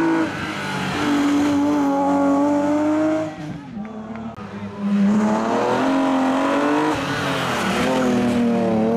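BMW M3 E36 rally car engine revving hard through tight bends, its pitch climbing under acceleration and dropping at gear changes and throttle lifts. It goes quieter for about a second and a half near the middle, then picks up hard again.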